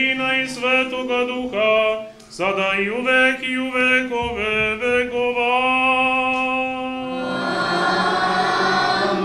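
Orthodox church chant: a sung melody moving over a steady held drone note, with more voices filling in about seven seconds in.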